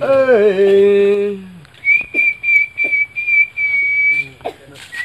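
A man's voice holds a long low note for about a second and a half, its pitch dipping at the start and then steady. Then a single high whistled note is held for about two seconds, wavering slightly.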